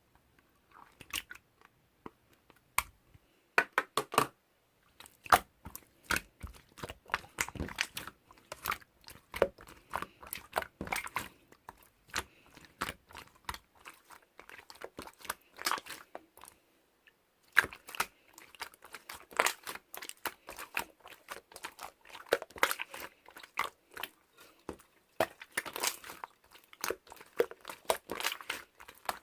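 Close, irregular crunching and crackling sounds in quick bursts, pausing briefly about two-thirds of the way through.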